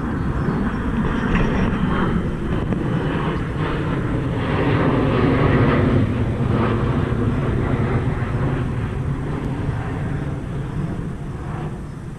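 A steady, low engine drone that swells about halfway through and fades near the end.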